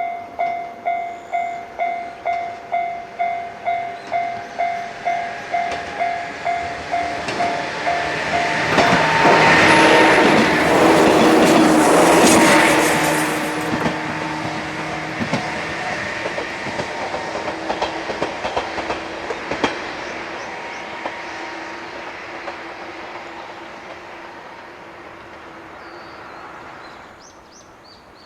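Japanese level-crossing warning bell dinging about two and a half times a second; it stops about seven seconds in. A 103 series electric train then passes close by, loudest for a few seconds, and its wheel clicks over the rail joints fade away as it leaves.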